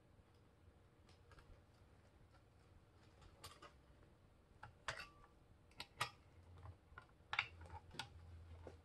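Near silence: room tone with a few faint, scattered clicks and taps, and a faint low hum near the end.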